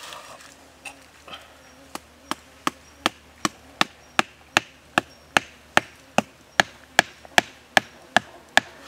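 A green wooden stake is knocked into sandy ground with a steady run of about eighteen sharp wooden knocks, about two and a half a second. The knocks start about two seconds in and grow louder.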